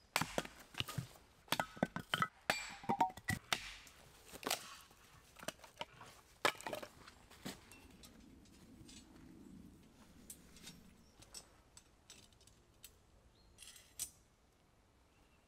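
A run of sharp knocks and clinks, dense in the first half and sparse after: firewood being split into kindling on a chopping stump, and the steel rods and chain hanger of a cooking tripod knocking together as it is set up.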